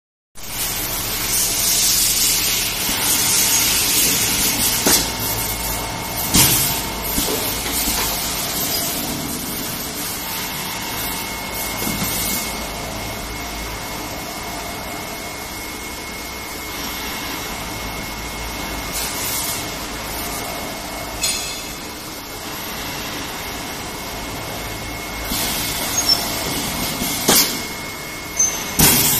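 Manual PET stretch blow molding machine at work: compressed air hissing in several bursts and pneumatic cylinders knocking as the moulds are operated, over a steady high tone.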